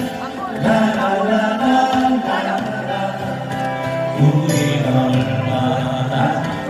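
Live acoustic band playing, with acoustic guitars and keyboard under sung vocals.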